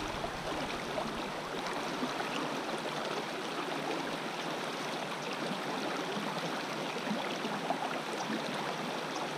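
Small creek running over rocks in a shallow riffle: a steady rush of flowing water.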